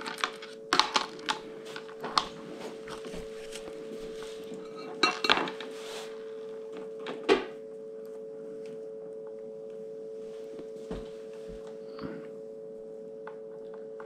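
Light clicks and knocks of a soldering iron, solder and wire being handled on a work table, a few in the first half, then only a few faint ticks. A steady faint hum runs underneath.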